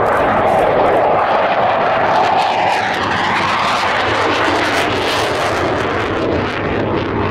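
Aircraft engine noise from an airplane making a low pass: a loud, steady roar whose pitch falls about two to three seconds in as it goes by.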